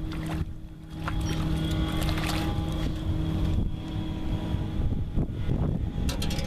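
Wind rumbling on the microphone over a steady low hum aboard a small fishing boat, with a few sharp clicks and knocks of rod and boat handling while a crappie is brought in.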